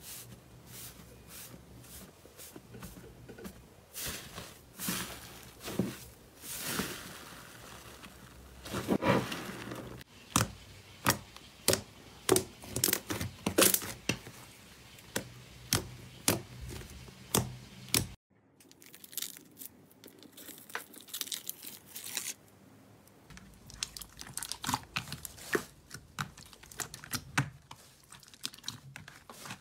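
Hands squishing, poking and stretching slime: irregular sticky pops, crackles and squelches as the slime is pressed and pulled apart. The sound drops out abruptly about eighteen seconds in, then the popping resumes.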